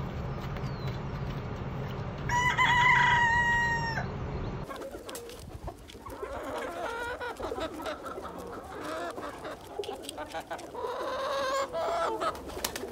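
Brown leghorn rooster crowing once, a long steady call about two seconds in, over wind noise. From about five seconds in, chickens clucking and calling in short, varied bursts.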